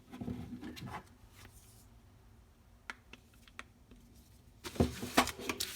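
Packaging and small accessories being handled during an unboxing: a rustle, a few sharp clicks, then a louder burst of rustling and knocking near the end.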